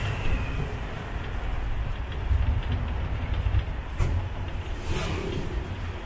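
A tuk tuk driving along a road: a steady low rumble of engine and road noise with a haze of wind and traffic. A few brief knocks or rattles come about two, four and five seconds in.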